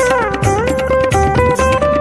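Background music with a plucked-string melody that slides between notes over a steady drum beat, in a South Asian style.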